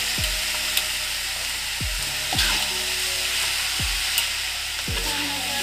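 Chopped cassava and papaya leaves sizzling in a metal wok, stirred with a metal ladle that clinks sharply against the pan a couple of times. Background music with a deep, regular drum beat plays over it.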